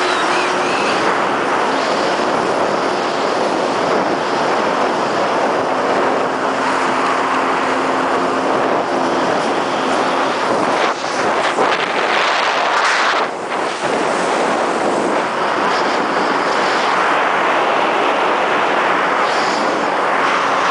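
Sea-Doo jet ski engine running at speed, mixed with wind buffeting the microphone and rushing water from the hull and wake. The level dips briefly twice near the middle.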